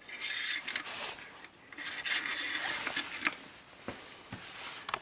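Metal engine oil dipstick of a Volvo S60 sliding back down its tube, a hissing scrape in two stretches with a few light clicks.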